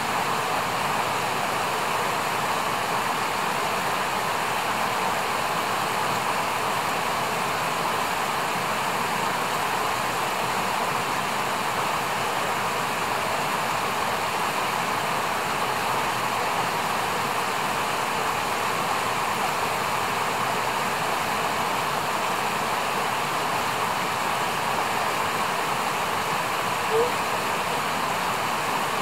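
Steady rush of flowing stream water. Near the end there is one short, high chirp.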